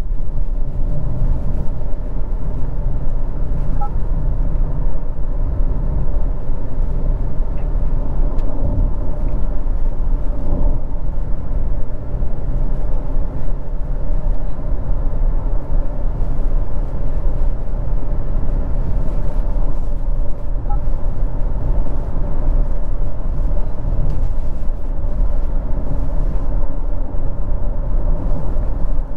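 2023 Honda CR-V with its 1.5-litre turbocharged four-cylinder, driving: a steady low rumble of engine and road noise heard inside the cabin.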